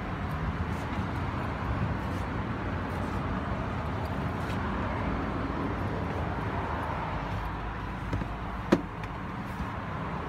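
Steady rumble of a car heard from inside its cabin, with one sharp knock about three-quarters of the way through.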